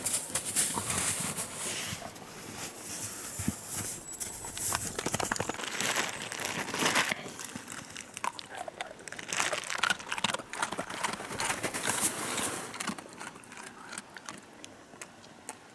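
Rustling and crackling of dry leaves and brush with irregular sharp twig snaps, as someone moves through forest undergrowth. It thins out and grows quieter near the end.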